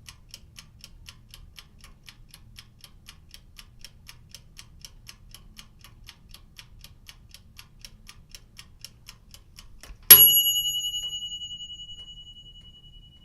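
Mechanical oven timer ticking steadily and rapidly, then its bell rings once about ten seconds in as the time runs out, the ring fading away over about three seconds.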